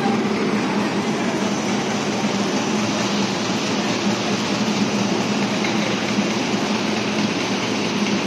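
Warp knitting machines running at speed, knitting microfiber fabric: a steady, dense mechanical clatter with a constant low hum underneath.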